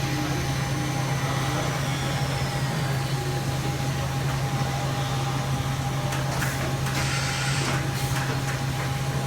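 Hurco VM10 CNC vertical machining center running under power: a steady low hum with a steady tone above it. A high whine falls in pitch about two seconds in, and short bursts of hiss come near the end.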